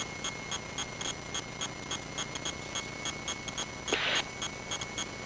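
Rapid, regular electronic beeping, about five short high pips a second, over a steady hiss, with a faint steady high tone underneath. A short rush of noise comes about four seconds in.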